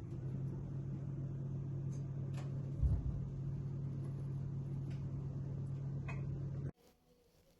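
A steady electric motor hum, low and even in pitch, that cuts off suddenly near the end. There is a single low thump about three seconds in.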